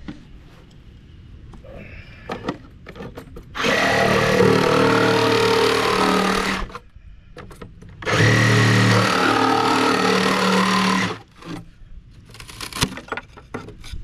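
A power saw cutting relief into the wall of a water meter box around the service pipe, run in two steady bursts of about three seconds each, with handling clatter in between.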